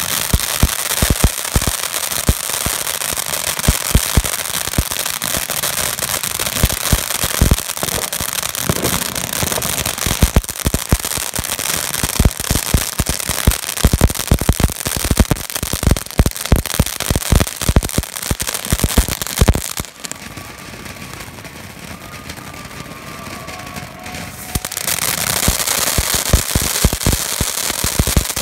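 Ground fountain firework spraying sparks with a steady hiss and dense, rapid crackling pops. About twenty seconds in it drops to a softer hiss for a few seconds, then the loud hiss and crackle come back near the end.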